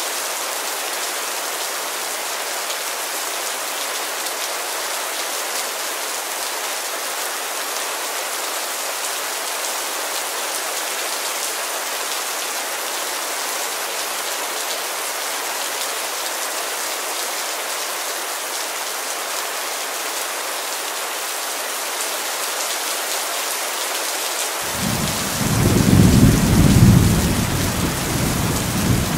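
Heavy rain falling as a steady, even hiss. About 25 seconds in, a deep rumble of thunder starts suddenly and rolls on, swelling twice.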